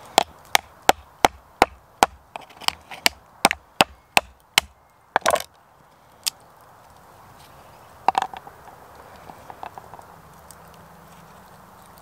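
A knife knocking on a cooked lobster claw's shell against a wooden chopping board: a quick run of sharp knocks, about three a second. The run is followed by a longer crunch about five seconds in, and a few scattered knocks and ticks later.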